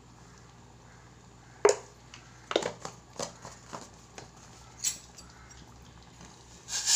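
A few sharp clicks and taps of a spoon against a stainless steel saucepan and a spice container as cardamom powder is spooned into sugar syrup, the loudest about two seconds in.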